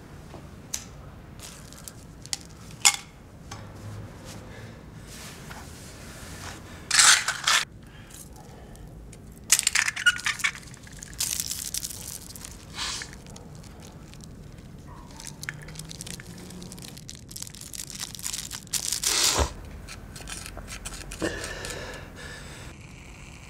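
Close handling of small objects and packaging: crinkling and rustling, with scattered sharp clicks and a few short rasping bursts.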